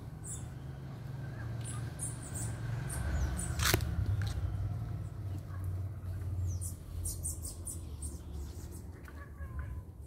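Birds chirping with short high calls scattered through, over a steady low rumble. A single sharp click comes a little under four seconds in.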